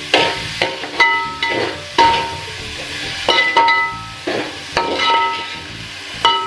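Metal ladle stirring a sautéing onion, tomato and cashew mix in an aluminium pot. It knocks against the pot about once a second, and each knock rings with the same short bell-like tones, with light sizzling between the knocks.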